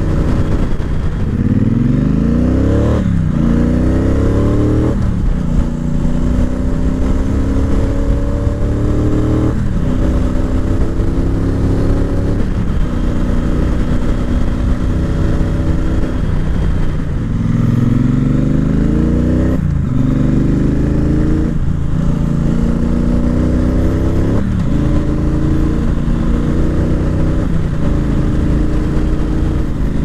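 Triumph Bonneville Speedmaster's 1200 cc parallel-twin engine heard from the saddle while riding: the revs climb under throttle, drop sharply at each upshift and climb again, many times over, with spells of steady cruising in between.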